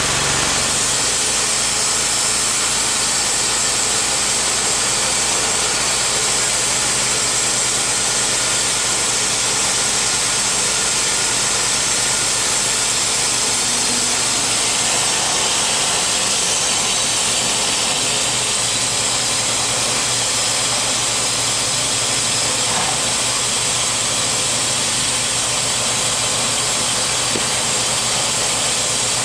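Timberking B-20 portable bandsaw mill's engine running steadily, with a high hiss from the spinning band blade. The wood-cutting sound drops away about a second in as a cut through a white oak log finishes, and the blade then spins free between cuts.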